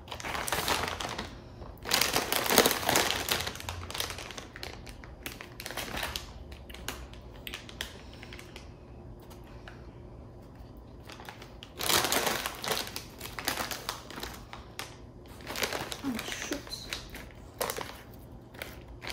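Plastic snack bags crinkling and rustling as they are picked up, handled and rearranged on a table. The rustling comes in several bursts, with a quieter stretch in the middle.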